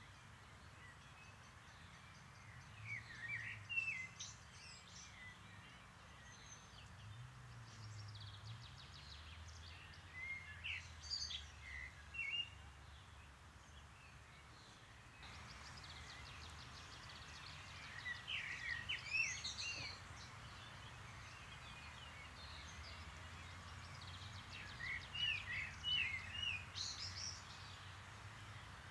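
A songbird singing a short, twittering phrase four times, roughly every seven seconds, over a steady low background rumble.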